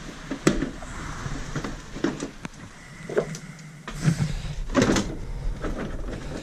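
Plastic front bumper cover of a Nissan Almera N16 being pulled off by hand: a series of clicks and knocks as its plastic clips pop free and the cover flexes and rubs, the loudest knock a little under five seconds in.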